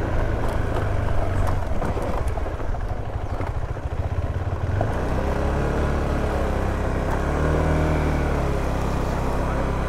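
Adventure motorcycle engine running at low speed over a rough, rocky dirt track, with clattering from the stones and the bike for the first few seconds, then a steadier, even engine note from about halfway.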